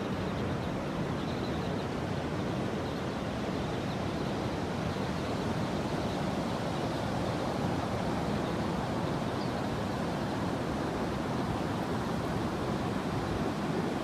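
Ocean surf breaking and washing onto the beach, a steady rushing noise.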